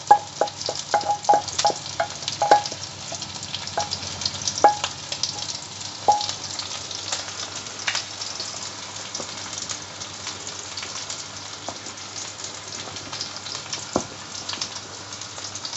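Ground spice paste being emptied from a frying pan into a pot of simmering beef rib broth, with a run of short clicks of pan and utensil during the first six seconds. Then a wooden spatula stirs the bubbling soup over a steady simmering hiss.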